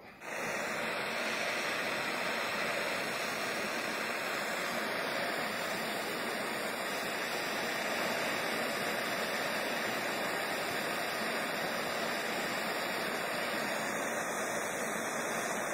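Handheld gas torch burning with a steady hiss of flame, starting a moment in and holding unchanged.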